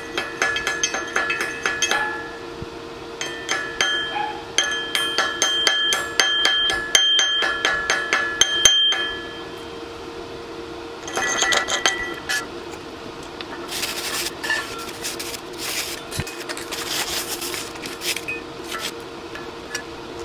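Chipping hammer knocking slag off fresh stick welds on a steel splitting wedge: rapid metallic taps, several a second, that set the steel plates ringing, in runs with short pauses. In the last third this gives way to a drier, scratchy wire-brushing of the welds without the ring, over a steady hum.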